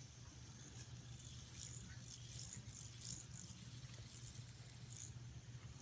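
Faint, irregular rattling clicks of a fidget spinner being handled and spun, over a low steady hum.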